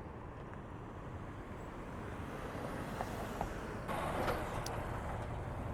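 Street traffic rumbling, with a vehicle passing that grows louder from about two seconds in and peaks in a brief hiss about four seconds in.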